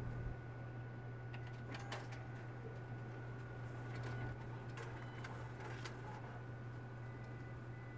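Office multifunction copier-printer running and feeding out a printed page: a steady hum with a few brief clicks and rustles about two, five and six seconds in.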